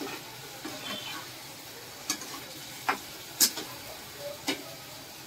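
Slotted spatula stirring paneer and peas through thick tomato gravy in a pan, with the gravy sizzling steadily underneath. The spatula clacks sharply against the pan about four times in the second half.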